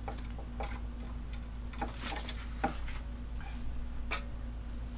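Small metal clicks and taps, irregular, as greased valve keepers are worked into a spring retainer on a GM Ecotec L61 cylinder head, with the valve spring held compressed by a homemade lever-type compressor. A steady low hum runs underneath.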